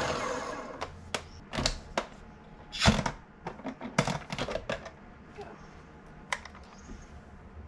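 A blender motor spinning down at the start, then a scattered series of sharp clicks and knocks of kitchenware being handled, the loudest about three seconds in.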